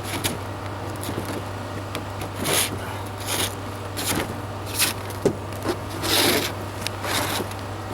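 Irregular short scraping strokes on the camper's roof surface, about five of them spaced unevenly, over a steady low hum.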